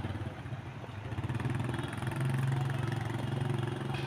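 Small motorbike engine running steadily as it rides past, getting louder about halfway through and dropping away at the end.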